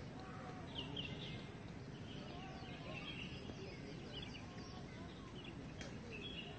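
Birds chirping, many short calls over steady low background noise.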